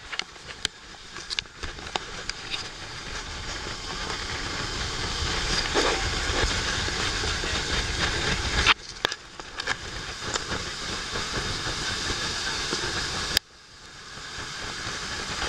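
Wind rushing over the microphone and water spray along the hull of a rigid-hull inflatable boat running at speed, a steady hiss with a low rumble beneath it. It swells over several seconds, cuts off suddenly twice and builds back up, with a few sharp ticks at first.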